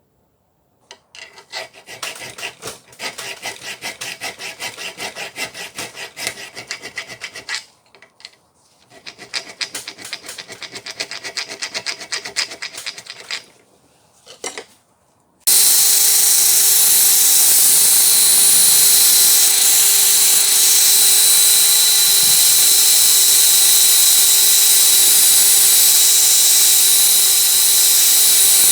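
Hand-tool rasping strokes, such as filing or sanding, at about three strokes a second, in two spells with a pause between. About halfway through an electric power tool starts and runs loud and steady at constant speed.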